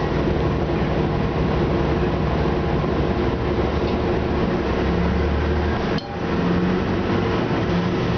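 Orion VII city bus's Detroit Diesel Series 50 engine and Allison B400R transmission, heard from inside the cabin while the bus is under way: a steady drone with low hum. About six seconds in the level dips sharply for a moment, then picks up again.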